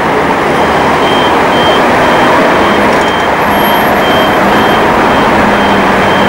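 Street traffic noise as a trolleybus drives past: a loud, steady rush of road noise, with a low hum coming in about halfway and a short high beep repeating about twice a second.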